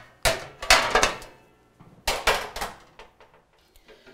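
Metal quarter sheet pans clattering as they are set down on a stack of other pans: sharp clangs with a short ring, two near the start and two more around two seconds in, then a few lighter taps. The pans are slick and slide around on each other as they are stacked.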